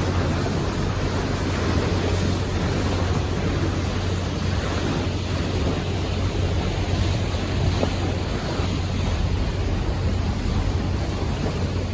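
Steady wind noise on the microphone over rushing water, with a constant low engine hum from a moving cruise boat.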